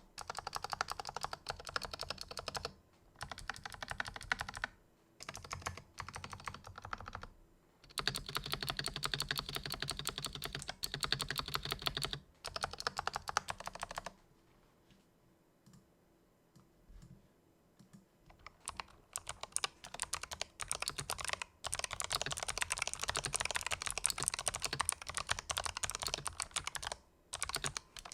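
Typing on a Razer Huntsman Elite keyboard with Razer Purple clicky optical switches: fast runs of keystrokes in bursts, thinning to scattered single keystrokes around halfway before a long dense run.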